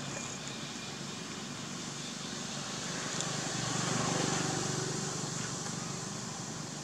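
Steady outdoor background noise, a low hum under a hiss, that swells for a couple of seconds around the middle and then settles.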